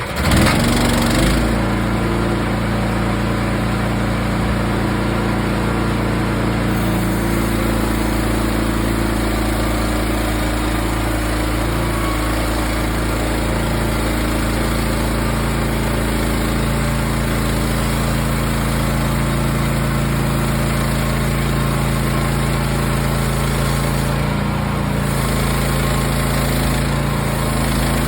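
Frontier OS27 portable band sawmill's small petrol engine running steadily while milling a log, coming in abruptly at the start.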